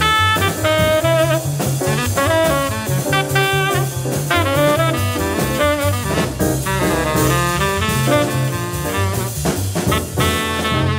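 Tenor saxophone playing fast bebop lines over a jazz rhythm section: upright bass walking one note per beat, with drum kit cymbals keeping swing time.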